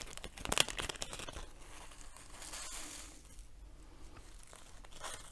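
Small resealable plastic bag of diamond painting drills crinkling as it is handled and opened, busiest in the first three seconds, with a few faint clicks near the end.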